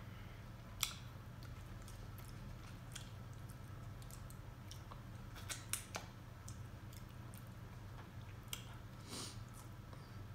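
Close-up eating sounds: a few sharp clicks and cracks, the loudest about a second in and a quick cluster around the middle, over a low steady hum.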